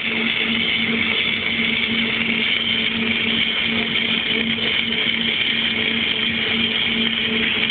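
Self-shielded flux-cored (Innershield) welding arc burning: a steady hiss over a constant low hum from the welding machine.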